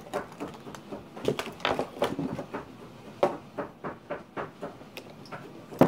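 Scattered clicks and knocks of toys being handled and set down on a wooden table, a few every second.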